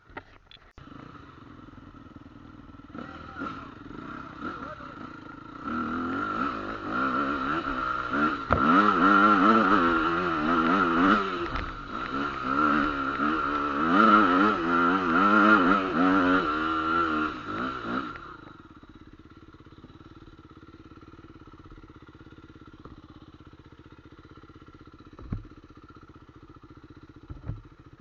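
Trail motorcycle engine revved up and down over and over, the pitch swinging rapidly, loudest for about twelve seconds in the middle, then dropping back to a low steady running sound.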